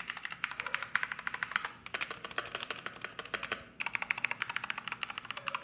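Fast typing on a Keychron K2 mechanical keyboard: a quick run of key clicks with two short pauses, about two seconds and four seconds in, shown off as a good-sounding keyboard.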